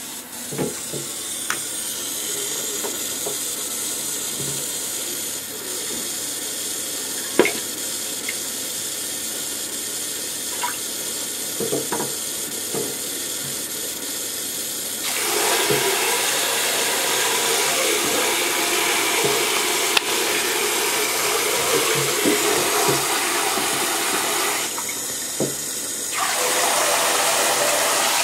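Water running from a handheld shower head into a bathtub, with a few sharp knocks and splashes. The spray gets louder about halfway through, drops briefly near the end, then comes back.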